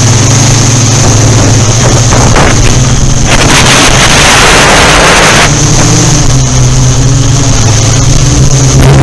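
Yuneec Typhoon Q500 4K quadcopter hovering on carbon fiber propellers: a loud, steady motor and rotor hum with a high whine above it. A gust of wind rushes across the microphone for about two seconds near the middle.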